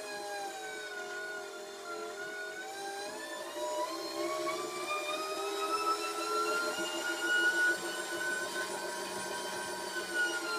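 Pedal-powered generator whining. Its pitch dips at first, climbs steadily for several seconds and begins to fall near the end, following how hard it is pedalled; faster pedalling gives more power and lights more bulbs on the panel.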